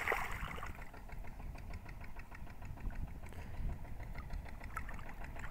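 A hooked fish splashes and thrashes at the surface of shallow river water as it is hauled in on a hand line, a short splash right at the start. Under it runs a steady, low, engine-like rumble.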